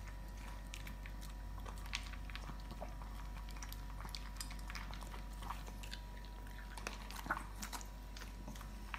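A shih tzu and another small dog crunching and chewing dry kibble from their bowls: irregular, crisp crunches.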